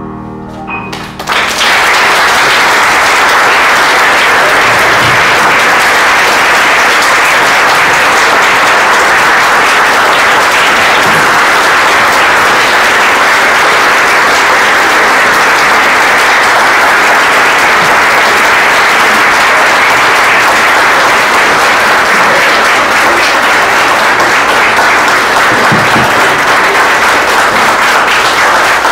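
A choir's last sung chord dies away. About a second in, audience applause breaks out and goes on steadily.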